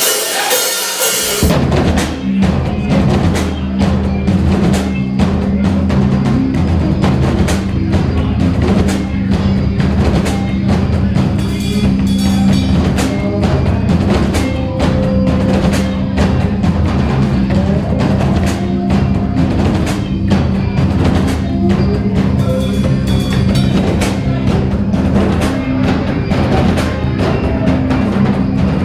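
Live heavy blues/stoner rock band playing: a drum kit with bass drum and snare driving a steady groove under a loud bass guitar line and electric guitar. It starts on a brief noisy crash in the first second before the groove settles in.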